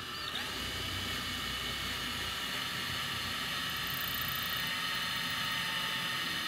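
Cordless drill running steadily at constant speed, boring through the canoe's gunwale into the wooden frame of the seat beneath, match-drilling through the existing hole.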